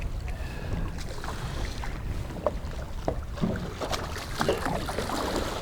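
Wind buffeting the microphone on a small boat, a steady low rumble, with a scattering of light knocks and taps from about halfway through.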